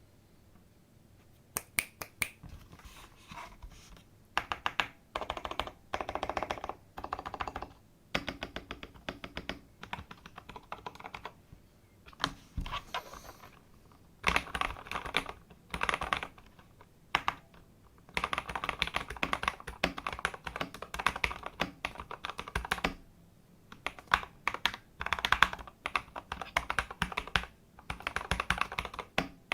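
Mechanical keyboard typing with frankenswitches (KTT Wine stems in Gateron housings) on an aluminium plate in a plastic case, cherry-profile keycaps: quick runs of keystroke clacks in bursts with short pauses, starting about a second and a half in.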